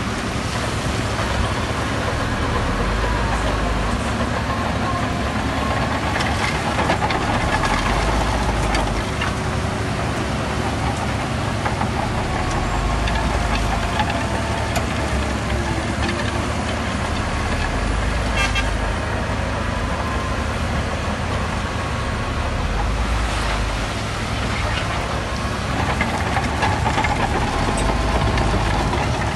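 Diesel engines of heavy earthmoving machinery running steadily, with a few faint wavering pitched tones over the engine noise.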